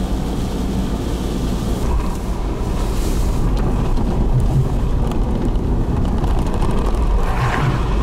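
Road noise inside a moving car's cabin: a steady low rumble of tyres and engine, with brief swishes about three seconds in and again near the end.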